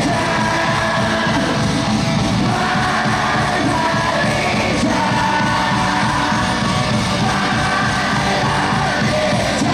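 Live band music with singing at a pop concert, loud and steady, heard from within the audience, with crowd voices yelling and singing along.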